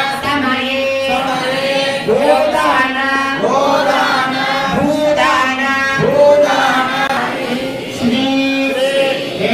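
Hindu priests chanting mantras in a sing-song melody during the wedding rite, the voices gliding up and down over a steady held note.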